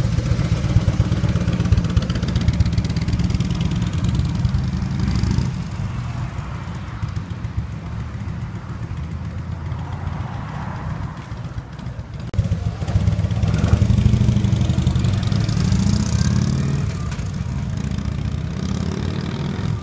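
Harley-Davidson FLHTK's V-twin running through North American-spec mufflers: a loud, pulsing low beat that drops off about five seconds in as the bike rides away. The engine sound swells loud again for several seconds past the middle before easing off.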